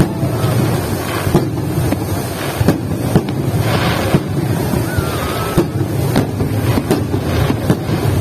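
Fireworks going off, a series of sharp bangs at irregular intervals over a steady low rumble of wind on the microphone.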